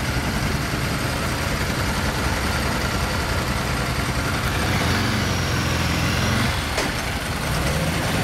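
Ducati 999's L-twin engine idling alongside a Moto Guzzi's engine, a steady low running sound that swells a little about five seconds in.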